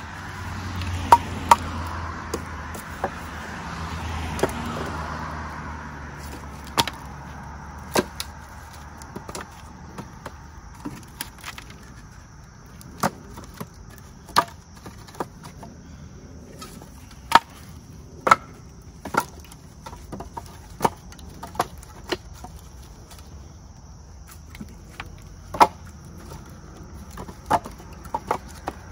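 Split firewood pieces knocking against each other as they are stacked by hand into a wooden bundling frame: sharp, irregular wooden clacks, roughly one every second or two.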